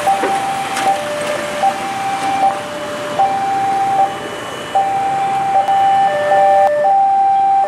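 Level-crossing warning alarm: an electronic signal alternating between a lower and a higher steady tone about every half second to a second. It sounds while the barriers are down, warning that a train is approaching.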